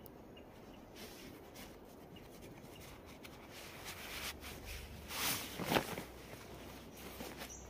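Nylon sleeping bag rustling and scraping as it is worked out of its compression stuff sack, with a louder swish of fabric about five seconds in as the bag slides free.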